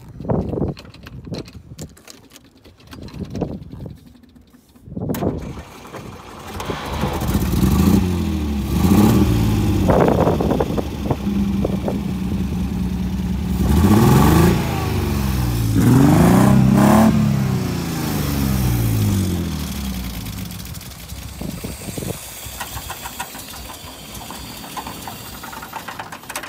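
1962 Austin-Healey engine being started, catching about five seconds in, then revved several times, with the revs rising and falling, before easing back toward idle in the last few seconds.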